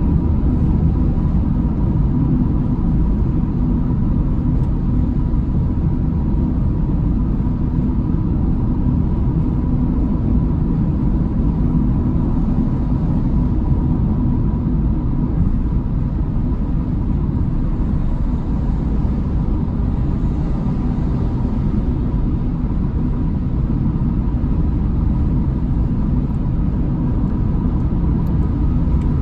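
Car cabin noise at motorway cruising speed: a steady low rumble of tyres, engine and road, with a thin steady tone running under it.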